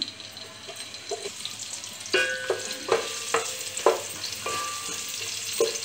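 Sliced onion sizzling in hot oil in an aluminium pot. From about two seconds in, a spatula stirs it, scraping and knocking against the pot with several short metallic rings.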